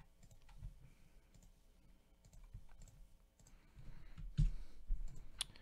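Scattered light clicks of a computer mouse and keyboard, with a few sharper clicks near the end.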